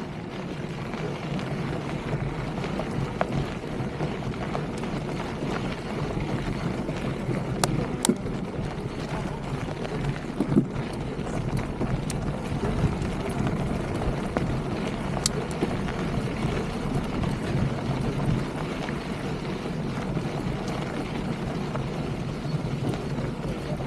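Polygon Siskiu mountain bike's knobby tyres rolling over desert gravel, a steady rushing noise with wind buffeting the microphone. A few sharp clicks stand out, about eight, ten and fifteen seconds in.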